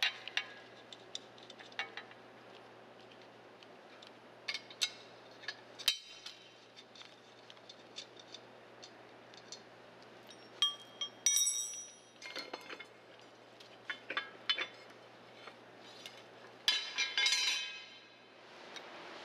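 Metal clinks and taps from a wrench and loose nuts as the nuts holding a street sweeper's pickup broom bearing and hub assembly are taken off, with a ringing metallic clink about eleven seconds in and a longer metallic rattle near the end.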